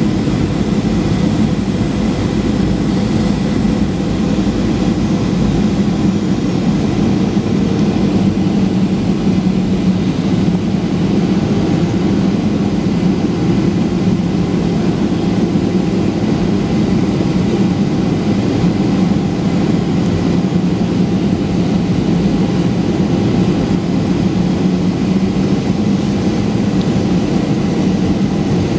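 Steady jet cabin drone of a Boeing 737-800 in flight, heard from a window seat beside the wing: CFM56-7B turbofan engines and airflow, a low rumble with a few faint steady tones above it.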